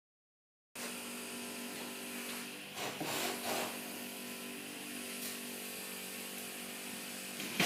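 A steady mechanical hum made of several fixed tones, like a small motor running, starting just under a second in, with a brief burst of rustling noise around three seconds in.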